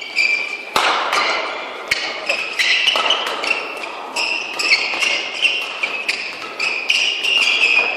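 Badminton doubles rally: rackets striking the shuttlecock in a quick run of sharp hits, ringing in a large hall, with shoes squeaking on the court floor between the hits.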